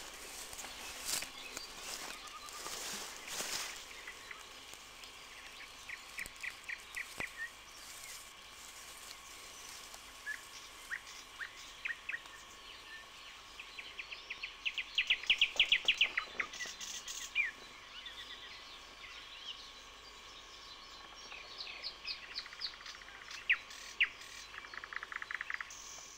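Small songbirds singing: repeated short trills of quick high notes, the loudest run about halfway through, over a low hiss of outdoor background.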